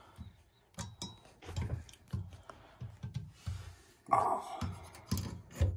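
Light clinks and knocks of a metal garage-door safety-sensor bracket being handled and held against a wooden header, with a louder burst of handling noise about four seconds in.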